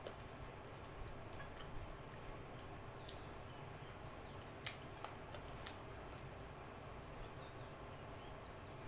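Soft eating sounds as curry and rice are eaten by hand: a few scattered wet clicks and smacks from fingers working the rice and from chewing, over a steady low hum.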